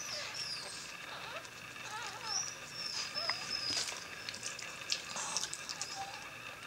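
Newborn Morkie puppies giving thin, high squeaks: several short wavering chirps, with a few higher whistly squeals in the middle, over soft rustling and small clicks on the blanket.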